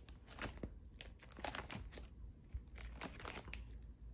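Plastic card-sleeve pages of a ring binder being turned by hand: a string of soft, brief crinkles and rustles of the plastic.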